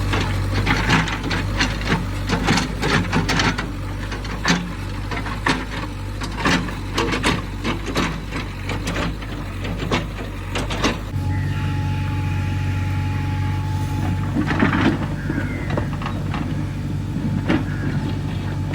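Diesel engine of road-construction machinery running steadily, with frequent sharp knocks and clatter over the first eleven seconds or so. After that the engine note steadies and gets stronger, with a thin high whine for a few seconds.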